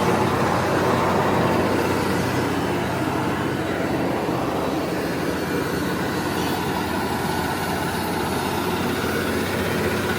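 Small single-cylinder petrol engine (Honda GX200, 6.5 hp) running steadily, driving a mini corn-sheller machine with a dense mechanical rattle. The noise is slightly louder over the first couple of seconds, then settles.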